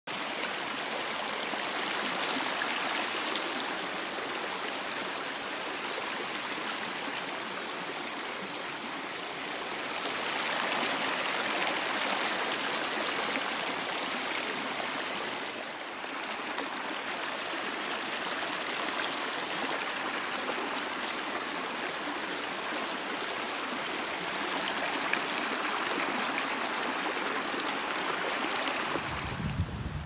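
Shallow rocky stream flowing over stones: a steady rush of running water, swelling a little now and then.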